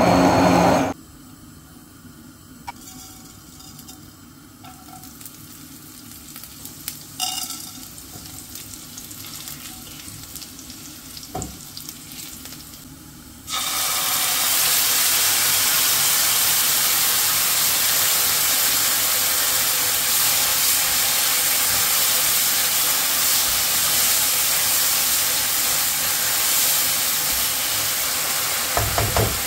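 A hand-held immersion blender runs and stops about a second in, followed by a quiet stretch with a few light knocks. Then a blended masala paste hits hot oil in a pan and sizzles loudly and steadily while it is stirred.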